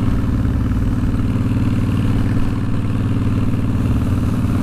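Honda VTX1300's big V-twin engine running steadily while the motorcycle is ridden, with an even low engine note and no change in pitch.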